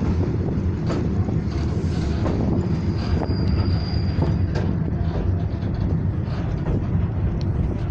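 Ride noise of a moving passenger train carriage: a steady rumble of wheels on the track with scattered clicks over the rails, and a brief high squeal in the middle.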